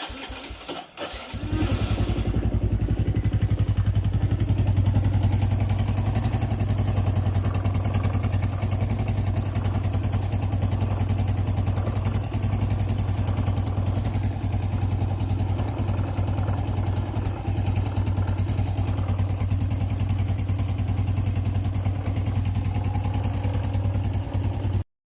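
Suzuki Raider J motorcycle engine starting and then idling steadily. There are a second or so of irregular clatter before it settles into a steady running note.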